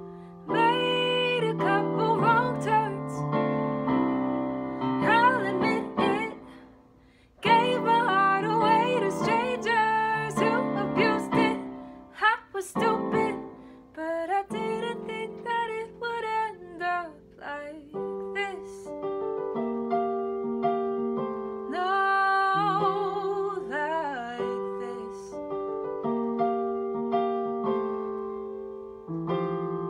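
A woman singing a slow ballad over piano accompaniment, with vibrato on held notes. The music stops briefly about seven seconds in, then the singing and piano resume.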